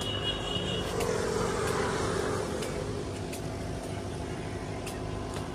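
Road traffic: a vehicle passes, its noise swelling and fading about one to three seconds in, over a steady engine hum.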